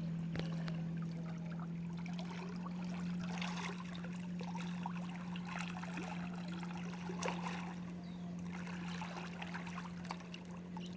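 Water gently lapping, trickling and splashing as bodies are moved slowly through it, in scattered small splashes over a steady low hum.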